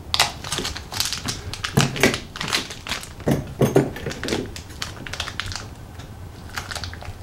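Scissors snipping away clear plastic wrapping from an action figure's boots: a string of irregular sharp clicks that thins out after about four seconds.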